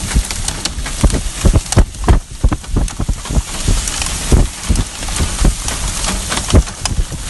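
Rain pouring, a steady hiss with many irregular loud thuds and knocks close by.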